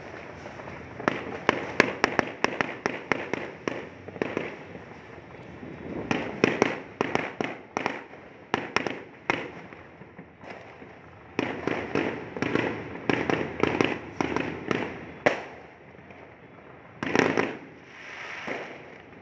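Fireworks going off: clusters of many sharp bangs and crackles, several a second, with short lulls of a second or two between the clusters.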